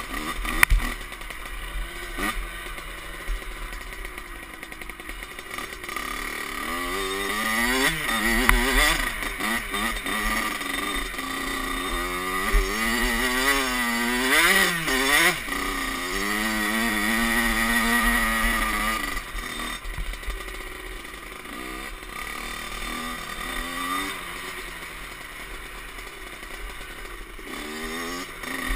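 Kawasaki KX65's small two-stroke single-cylinder engine, fitted with a new Pro Circuit pipe and silencer, revving up and down as the dirt bike rides through snow. The pitch climbs and falls again and again, with the hardest revving about a quarter and half of the way through.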